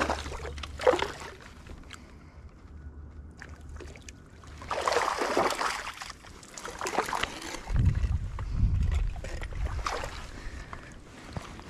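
Hooked trout splashing and thrashing at the lake surface at the bank as it is reeled in and scooped into a landing net, in a string of sloshing surges with some low rumble on the microphone in the second half.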